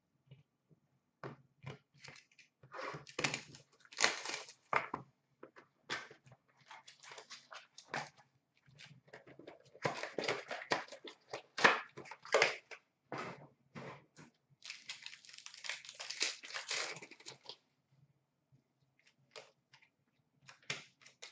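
Trading card packs and boxes being torn open and handled: irregular crinkling and rustling of wrappers with small clicks, in several clusters separated by short pauses.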